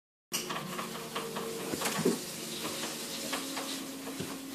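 Household room background: a steady hiss with scattered small clicks and rustles, and faint held low tones from children in the room.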